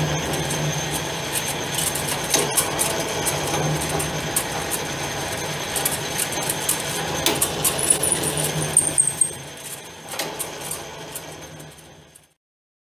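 Hardinge HLV lathe running with a steady hum, and light clicks and rattles from the carriage and handwheels as they are worked during threading passes. It gets quieter about ten seconds in, then cuts off suddenly near the end.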